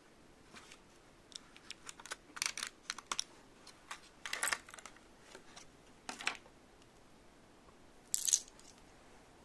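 Small plastic toy pieces from a Sylvanian Families refrigerator set being handled: light clicks and taps, with a few short rustles, the loudest near the end.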